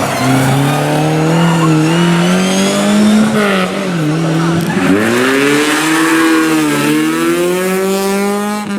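Rally car engine at high revs, its note climbing, dropping twice around the middle as the throttle lifts or a gear changes, then climbing steadily again under acceleration.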